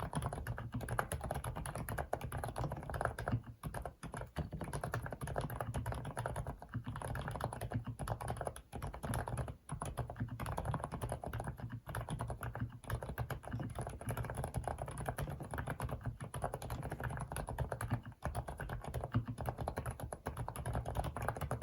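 Rapid, continuous typing on an FL-ESPORTS CMK75 mechanical keyboard fitted with Kailh silent cream linear switches, a low-noise, soft keystroke sound. The typing breaks off in a few brief pauses.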